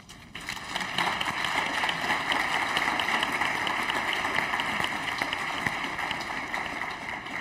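Audience applauding, starting just after the start and tapering off slightly near the end.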